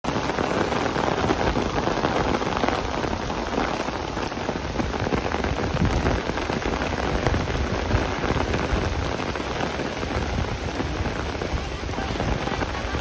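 Steady rain falling on wet pavement and grass, a dense, even hiss of countless small drops.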